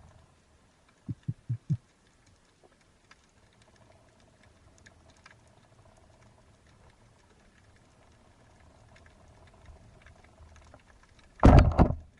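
Underwater recording: faint scattered crackling, four quick low knocks about a second in, and a loud sudden burst of noise near the end.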